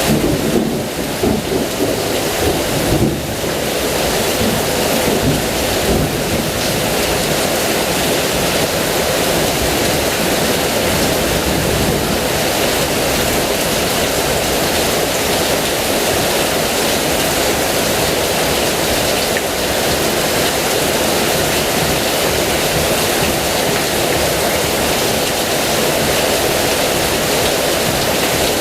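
Heavy rain falling steadily, with a rolling rumble of thunder during the first few seconds.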